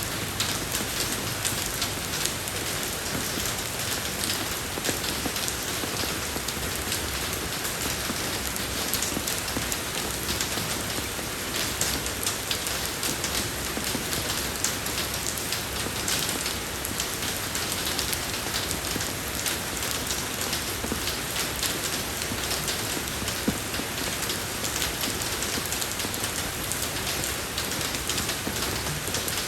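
Steady rain falling on a road surface, with a dense patter of individual drops over an even hiss.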